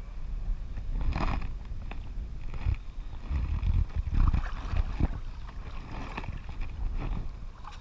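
Wind buffeting the microphone, with shallow sea water lapping and sloshing close by in uneven surges.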